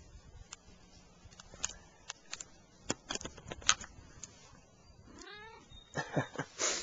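Siamese cat giving one short meow about five seconds in, its pitch rising then falling. Scattered sharp clicks and taps come before it.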